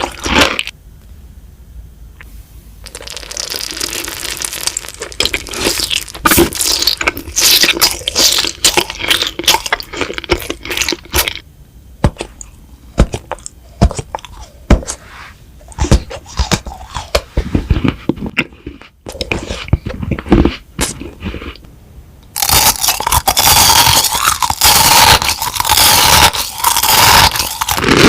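Close-miked eating sounds: crisp crunching bites and chewing with scraping, in irregular sharp snaps separated by quieter moments. About three-quarters of the way through, a dense, unbroken crackling takes over.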